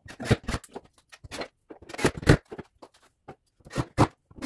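Irregular clicks and knocks of small metal cabinet hardware, hinge mounting plates and screws, being handled and set against the cabinet box, a few louder knocks among them.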